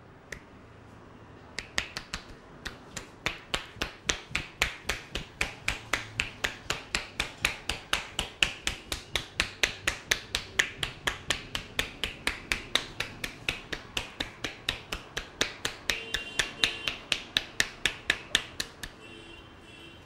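Rhythmic percussion head massage: the barber's palms, pressed together, strike the top of the head in fast, even blows, each making a sharp clapping pop, about three or four a second, stopping near the end.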